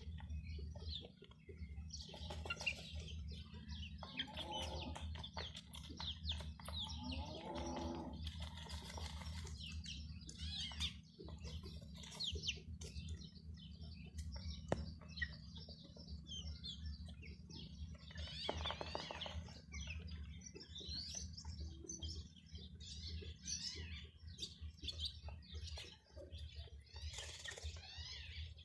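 A brood of chicks peeping continuously in short, high calls, with a hen giving lower calls a couple of times, about 4 and 7 seconds in. A steady low hum runs underneath.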